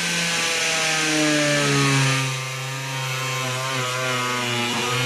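Corded DeWalt angle grinder cutting into a thick plastic barrel. The motor's whine sinks in pitch and recovers as the blade loads up and bogs in the plastic, under a steady hiss of cutting.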